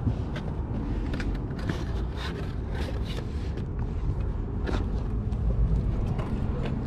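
Rustling, scraping and light knocks as a paper plate, a cardboard pizza box and aluminium soda cans are handled, over a steady low rumble.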